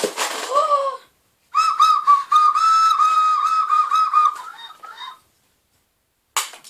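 A small handheld whistle blown hard: a short first puff, then about three seconds of shrill, steady whistling in short broken pulses that wavers and dies away.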